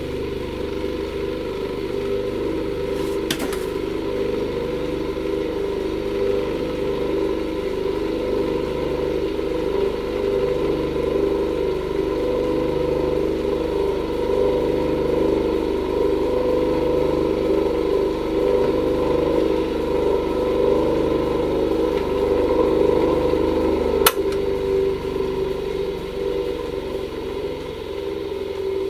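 Soviet IE-9701 bench grinder's single-phase electric motor running free at speed with its 175 mm grinding wheels spinning, a steady hum with a slow, regular pulsing in it. The owner puts this down to slight wheel runout that needs balancing. There is a sharp click about 24 seconds in.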